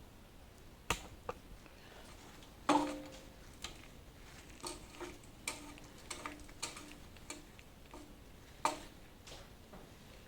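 Metal clicks and clinks from hand tools and loose bolts being worked on an engine block, irregularly spaced, with a louder ringing clank about two and a half seconds in and another sharp clank near the end.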